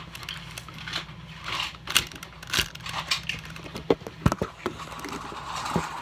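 Irregular sharp plastic clicks and scrapes, heard close up, from a Rubik's cube being turned and handled right against the phone's microphone.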